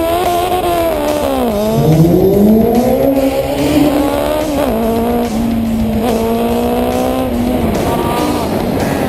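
Sport motorcycle engine revving hard while accelerating through the gears in a drag race: the pitch climbs, drops sharply at each shift and climbs again, then holds steady for a couple of seconds.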